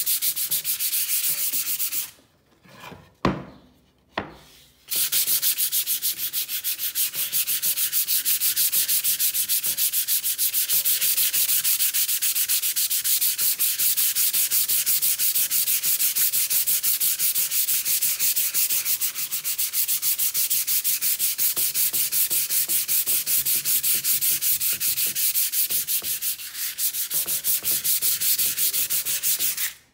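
Hand sanding a round wooden board with sandpaper: rapid, even back-and-forth rubbing strokes. The strokes pause about two seconds in, with a single knock during the pause, then resume and stop just before the end.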